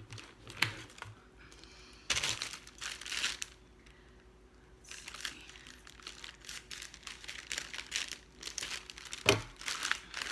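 Subscription mailer package being torn open and its packaging crinkled and rustled by hand, in irregular bursts with a short lull, and one sharp knock near the end.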